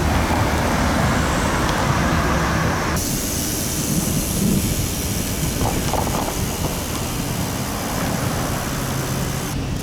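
Steady road and wind noise of riding along in traffic, heard through a bike-mounted camera's microphone; the sound changes abruptly about three seconds in.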